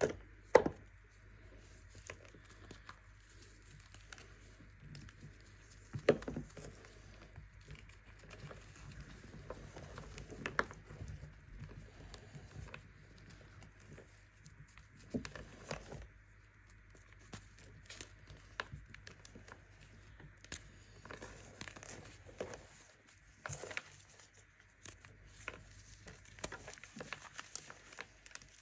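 Baking soda being crushed: irregular crunching and crumbling, with sharp louder cracks just after the start and about six seconds in.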